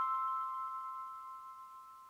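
Background music ending on a chime-like bell note that rings on, fading away steadily.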